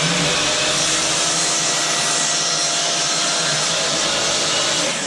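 Electric power saw running steadily as it cuts through a wooden board, its motor starting to wind down at the very end.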